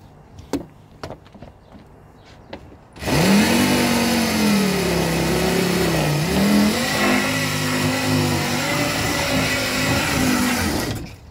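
A few faint clicks, then about three seconds in a loud motor-like revving starts suddenly over a strong hiss, its pitch rising and falling. It stops abruptly near the end.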